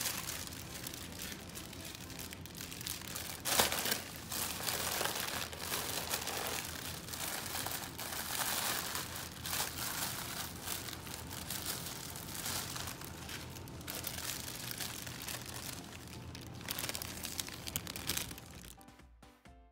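The thin plastic film of a deflated inflatable cat balloon being crumpled and squeezed by hand, crinkling continuously, with one sharp crack about three and a half seconds in. Quieter music comes in near the end.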